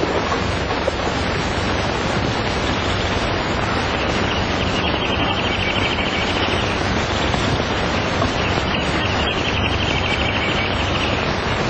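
Steady hiss and rumble of an old film soundtrack. A faint high rapid trill comes in twice, once in the middle and once near the end.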